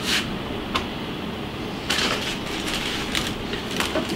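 Short crinkles and rustles of a plastic-bagged part being handled, the strongest cluster about two seconds in, over a steady hum of running aquarium equipment.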